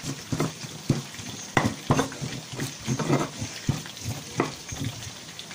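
Stone pestle (ulekan) mashing and grinding chili sambal in a volcanic-stone mortar (cobek), in irregular strokes about two a second.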